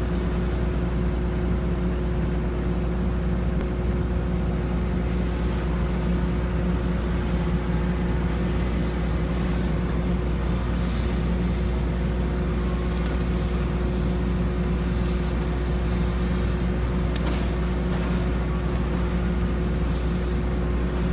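John Deere skidder's diesel engine running at a steady speed, a constant low drone, with light rattling now and then in the second half.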